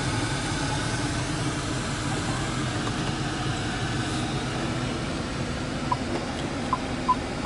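BMW 550i xDrive's 4.4-litre twin-turbo V8 running steadily at idle, heard from inside the cabin. Near the end, short high electronic beeps from the car start and quicken to about three a second.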